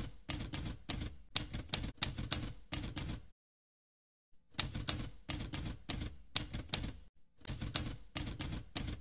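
Typewriter sound effect: runs of rapid key strikes, in time with a title being typed onto the screen letter by letter. It breaks off for about a second after the first three seconds, then starts again.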